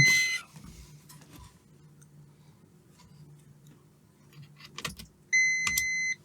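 Multimeter continuity beeper giving a steady high beep for just under a second, about five seconds in, after a few clicks of the test probes; the end of an earlier beep sounds at the very start. A continuous beep means an unbroken path through the part under test, as through a good fuse.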